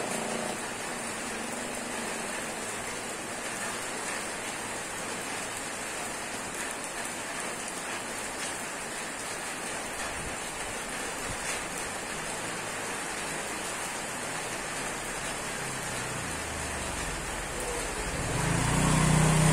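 Steady rain falling on a wet street, an even hiss. Near the end a motorcycle engine grows louder as it approaches.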